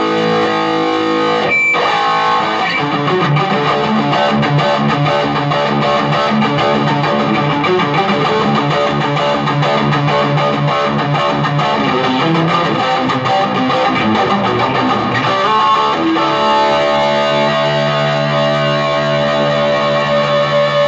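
Electric guitar played through a 15-watt Marshall MG combo amp: continuous chords and riffs, ending on a chord left ringing for the last few seconds.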